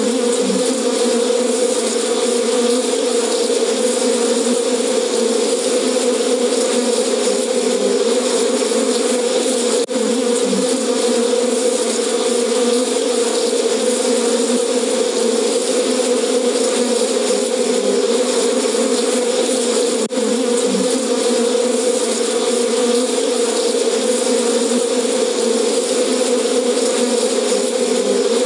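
Recorded swarm of angry bees buzzing loudly and steadily, played back as an elephant deterrent that the detection of an elephant has set off. It breaks off for an instant about ten and twenty seconds in.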